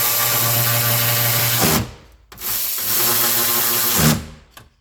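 A small electric motor runs in two bursts of just under two seconds each, with a short pause between them. Each burst ends with a drop in pitch as the motor winds down.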